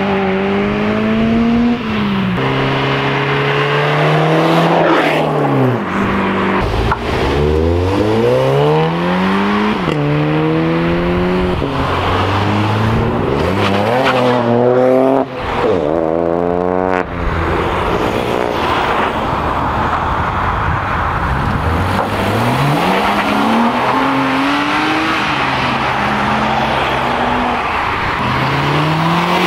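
Several cars accelerating hard past in turn, each engine note climbing in pitch, dropping at a gear change and climbing again, over tyre and road noise.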